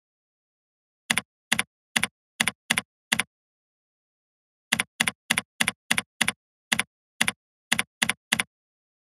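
Computer keyboard keystrokes: a short run of six key presses as a username is typed, a pause of about a second and a half, then a longer run of about thirteen as a password is typed.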